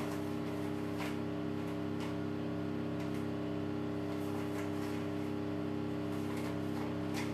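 Steady hum of a running kitchen appliance, several fixed tones held unchanging, with faint light taps about once a second as cornflour is spooned into the food processor's bowl for weighing.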